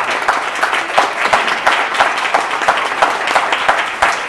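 Audience applauding, many people clapping at once in a dense, steady patter.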